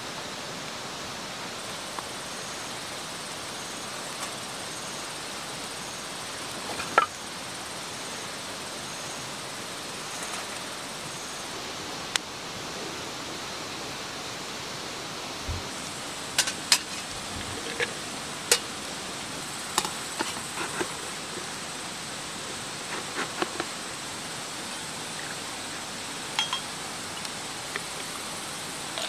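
Steady rushing of a mountain stream, with scattered short clicks and knocks over it, most of them in the second half.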